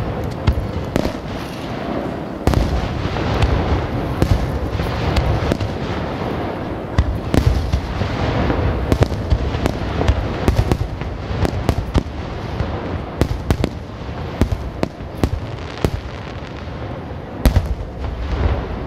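Aerial fireworks bursting in quick, overlapping succession: a continuous run of booms and sharp cracks over a steady low rumble, with no pause.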